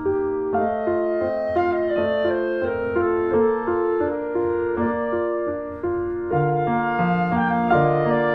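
Instrumental background music: a melody of held notes that step from one pitch to the next, with a lower part coming in about six seconds in.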